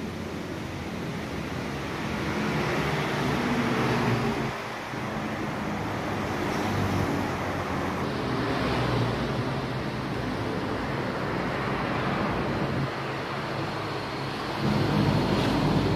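Steady outdoor rushing noise with a low rumble underneath, swelling louder twice.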